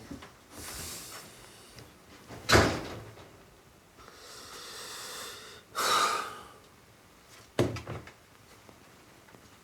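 Two sharp knocks, one about two and a half seconds in and one near the end, with hissing and rustling sounds between them.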